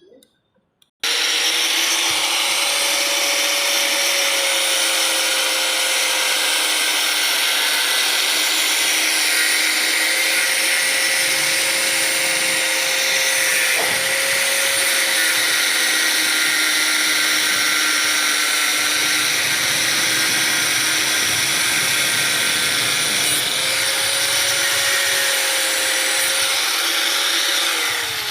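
Electric power tool motor starting abruptly about a second in and running steadily under load for most of the time, with a high hissing whine. Near the end it winds down with a falling pitch.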